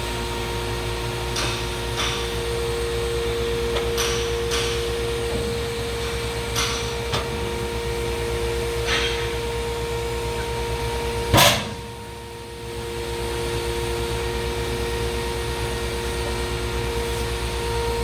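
Hydraulic press brake (Durmazlar HAP 2060 S, 60-ton) running, its hydraulic pump motor giving a steady hum, with scattered light clicks. There is one loud knock about eleven seconds in, after which the hum drops for about a second and then comes back.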